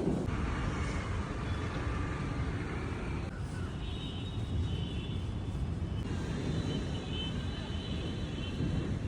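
A steady low rumble, with faint thin high tones coming and going above it.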